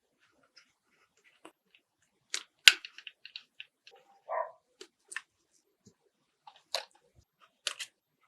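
Scattered small clicks and taps of a 1:24 scale model car being handled and worked on, with one sharp click about two and a half seconds in and a short rub a couple of seconds later.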